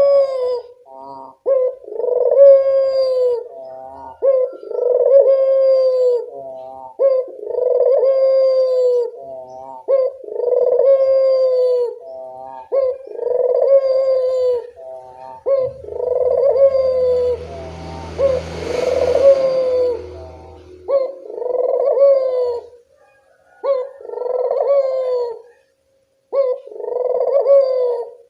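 Puter (domestic ringneck dove) cooing over and over, about eleven drawn-out coos that fall in pitch, each roughly two and a half to three seconds after the last, with short quick notes between some of them. About two-thirds of the way through, a hiss with a low hum rises under the coos for several seconds and fades.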